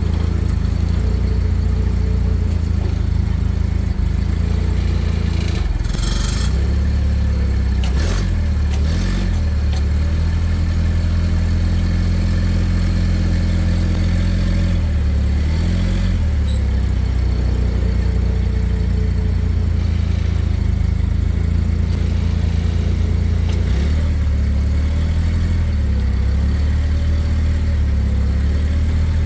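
Ford F700 truck engine running at low speed, its pitch rising and falling several times with throttle changes. A short, higher hiss-like noise comes about six seconds in.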